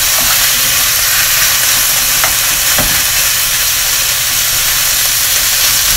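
Thin slices of pork loin and sliced onion sizzling in oil in a nonstick frying pan over medium heat: a steady hiss, with a spatula stirring and separating the meat and knocking faintly on the pan a couple of times.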